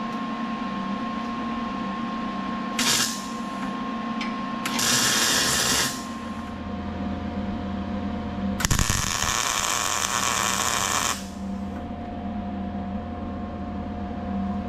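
A MIG welder tack-welding a new steel frame rail to the torque box: three bursts of crackling arc hiss, a short one about three seconds in, a second of about a second, and a longer one of about two and a half seconds near the middle, over a steady machine hum.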